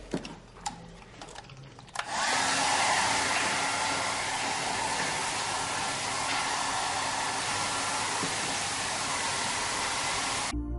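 A steady rushing hiss with a faint whine, typical of running shower water or a hair dryer. It starts abruptly about two seconds in, after a few faint knocks, and cuts off suddenly near the end.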